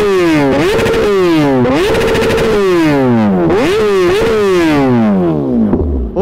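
Kawasaki Ninja ZX-10R's inline-four engine, breathing through an Austin Racing full titanium exhaust, revved hard in place about five times. Each rev snaps up quickly, holds briefly at the top and then falls away slowly. The exhaust note is very loud.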